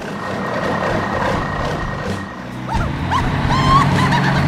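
Heavy truck engine running steadily, with a few short squeaky rising calls about three seconds in.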